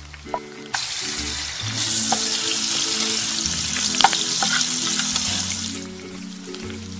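Chopped tomatoes dropped onto hot oil and vegetables in an enamelled pan start sizzling suddenly about a second in, with a few clacks of a utensil against the pan. The sizzle dies down near the end as a wooden spatula stirs the mix.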